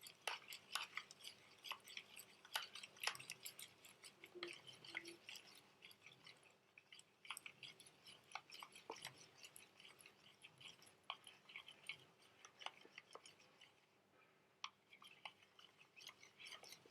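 Faint, irregular clicking and scraping of a spoon stirring salt and washing powder into water in a container until they dissolve. It goes on in uneven spurts with brief pauses.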